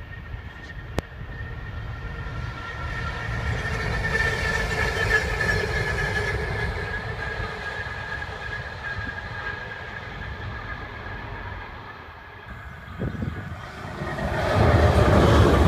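Pacific National G class diesel-electric locomotive running light engine as it approaches: a diesel rumble growing louder and then easing, with a steady high whine over it. A sharp click comes about a second in. Near the end, a second diesel locomotive, SCT's CSR class, running light and louder.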